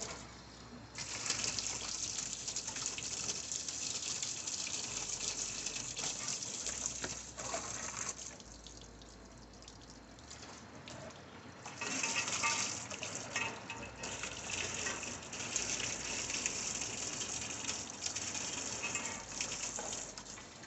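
Water gushing into a removed toilet to flush out its trap while it is cleared of a blockage, in two long spells with a quieter lull in the middle.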